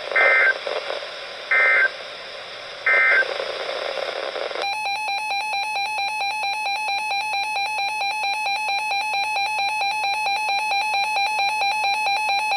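Three short warbling data bursts of an Emergency Alert System end-of-message code on a NOAA weather radio, marking the end of a warning. About four and a half seconds in, the weather radio's own alarm starts: a steady run of rapid beeps announcing the next warning.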